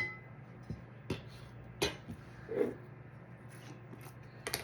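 A few scattered clinks and knocks of a utensil against a jar and saucepan as seedless jam is scooped out into the pan, with one softer, duller knock about halfway through.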